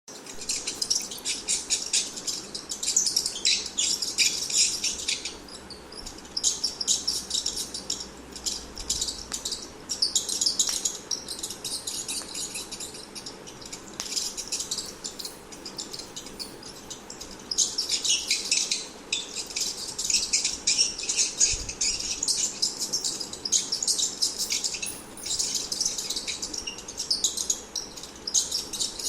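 Rat squeaking: rapid runs of high-pitched squeaks in clusters a few seconds long, with short pauses between them.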